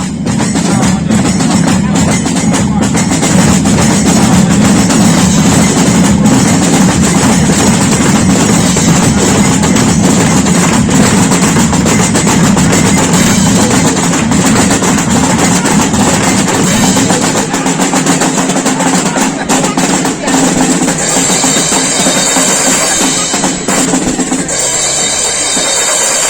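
Loud, continuous drumming from a band of bass and snare drums, with the beats following closely on one another; a few high steady tones join in over the last few seconds.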